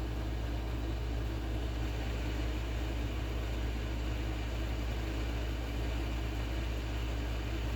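Steady low hum of background machinery, unchanging throughout.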